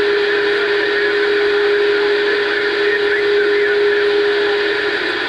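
CB radio receiver on single sideband during skip, its speaker giving a steady hiss of band noise, with a steady low whistle held over it that stops about five seconds in.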